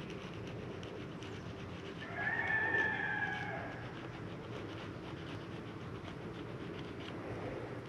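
A bird gives a single drawn-out call, about a second and a half long, beginning about two seconds in, over a steady low hum.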